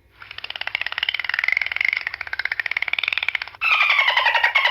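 Dolphin calls: a fast buzzing, pulsed chatter with a wavering whistle-like tone through it, then, about three and a half seconds in, a louder run of pulsed squawks falling slightly in pitch.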